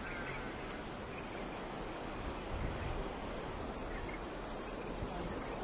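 Crickets chirring in a steady, unbroken high trill over a constant low rumble.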